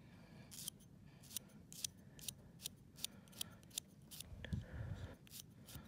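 Glass nail file scraping across a dog's claws in short, quick downward strokes, about four a second and faint. The filing rounds off the sharp edges left by the clippers.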